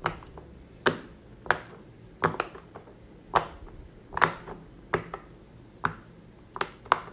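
Bubbles of a silicone pop-it fidget toy being pushed through one at a time with a finger, each giving a short, sharp pop: about eleven pops at an uneven pace, roughly one or two a second.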